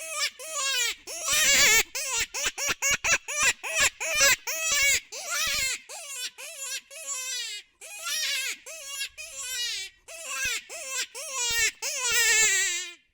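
Predator call playing an animal distress sound: a rapid run of high, downward-falling cries, one after another with a couple of brief pauses, cutting off suddenly at the end.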